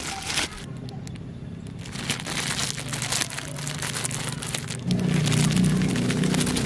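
Thin clear plastic snack bag crinkling in quick crackles as hands handle and squeeze it. About five seconds in, a louder low steady drone comes in and carries on.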